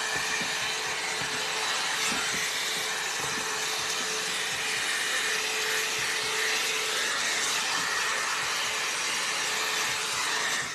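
A Foxy Bae hot-air blowout brush running as it is drawn through hair: a steady rush of blown air with a steady motor hum underneath. It cuts off abruptly at the end.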